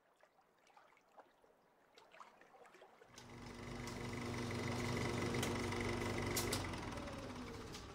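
A steady low drone with several held tones swells in about three seconds in, with a couple of sharp clicks at its loudest, and fades away near the end.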